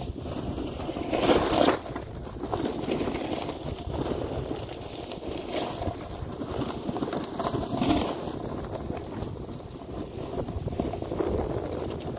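Snowboard sliding over packed snow, the edge scraping louder in surges as the rider turns, with wind rushing over the microphone.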